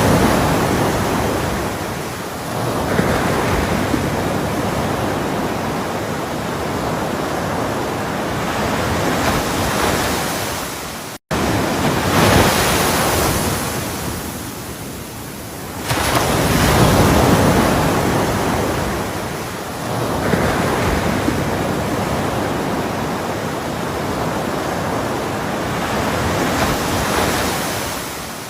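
Ocean surf: waves breaking and washing in, swelling and fading every few seconds. The sound cuts out for an instant about eleven seconds in.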